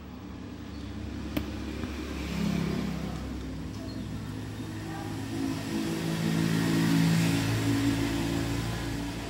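A motor vehicle engine running, with low pitch lines that shift as it builds up; it is loudest about seven seconds in. A single sharp click comes about a second and a half in.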